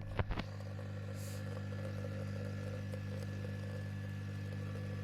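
A Bosch CTL636ES6 built-in fully automatic coffee machine running with a steady low hum partway through making a cappuccino. There are a couple of light clicks just after the start.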